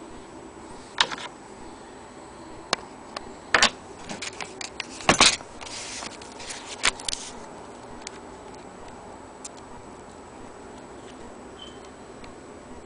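Handling noise: scattered clicks and knocks, the loudest about five seconds in, and a paper rustle around six to seven seconds as the instruction booklet is picked up and opened. The second half holds only a few faint ticks.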